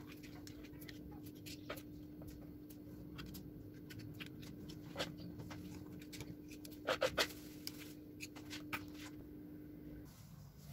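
Metal spoon clicking and scraping against paper cupcake liners and metal tins as cake batter is spooned in: scattered light clicks, with a few louder ones about seven seconds in. A faint steady hum runs underneath and stops near the end.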